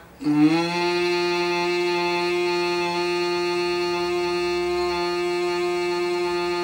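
A man humming one long, steady bumblebee-like hum on the out-breath, the mahapran dhvani (bhramari) breathing practice. The pitch rises slightly as the hum begins, then holds level.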